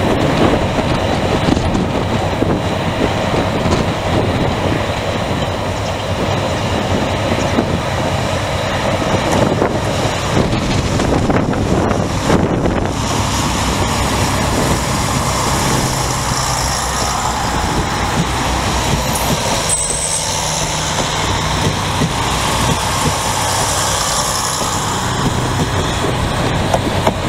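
Steady running of a CP class 1960 diesel locomotive at the head of a freight train, while a passenger multiple unit passes close by about halfway through with a rush of wheel and rail noise.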